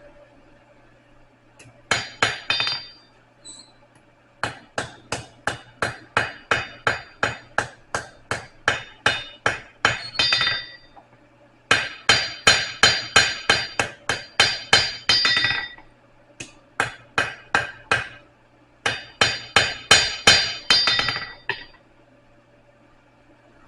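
Blacksmith's hammer striking steel on an anvil, ringing, at about three blows a second. The blows come in five runs separated by short pauses.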